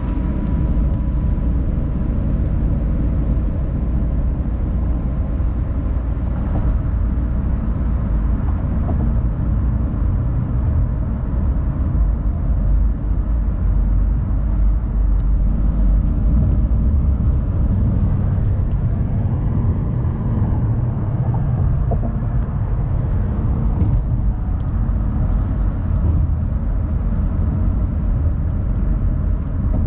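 Steady low road rumble of a car driving at highway speed, heard inside the cabin.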